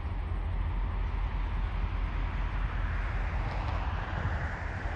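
Diesel-electric locomotives running light engine at low speed: a steady low rumble that grows a little louder in the second half as they come closer.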